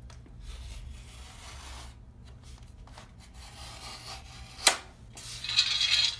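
Utility knife scoring the paper face of a piece of drywall along a sheetrock T-square: faint scraping at first, a sharp click a little past the middle, then a louder scraping stroke near the end.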